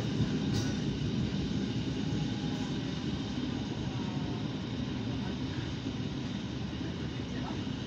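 ALn668 diesel railcar running at speed, heard from on board: a steady low engine drone mixed with the rumble of the wheels on the track.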